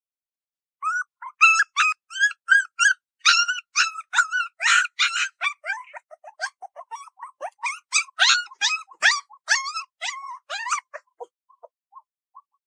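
Young puppies whimpering and yelping in a rapid run of short, high-pitched cries, each often falling in pitch, thinning to faint squeaks near the end.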